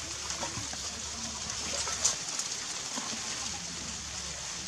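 Steady high hiss of outdoor background noise, with a few light clicks and one sharper click about two seconds in.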